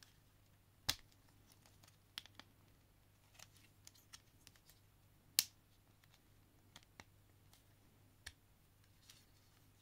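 Plastic clicks and snaps of a Transformers Legacy Skullgrin action figure's joints and panels being folded and pegged together during transformation. About a dozen scattered clicks, the sharpest about a second in and about five and a half seconds in.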